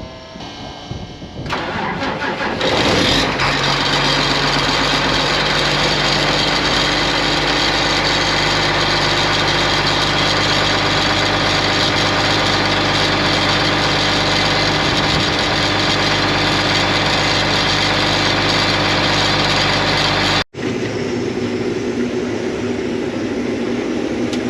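Combine harvester's diesel engine cold-started: the starter cranks briefly, the engine catches about a second later and settles into a loud, steady run. Near the end the sound cuts off for an instant and comes back quieter.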